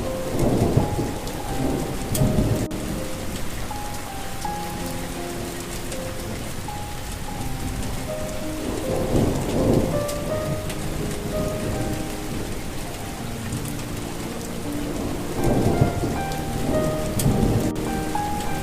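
Steady rain falling, with thunder rumbling three times: near the start, about halfway and near the end. A soft melody of held notes plays over it.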